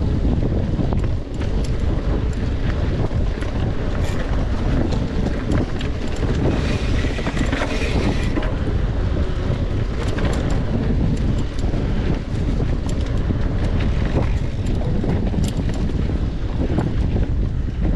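Wind buffeting the microphone of a camera riding on a mountain bike at race pace, a steady low rumble, with frequent clicks and rattles from the bike over rough trail. A stretch of brighter hiss comes about seven seconds in.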